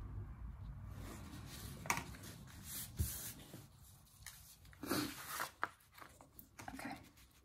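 A sheet of construction paper being handled and turned over on a tabletop: a few short rustles and soft knocks, the busiest about five seconds in.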